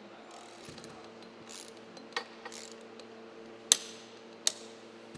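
Three sharp metallic clicks from hand tools working on a bicycle crankset, the loudest near the middle, with softer rustling handling noise between them over a faint steady hum.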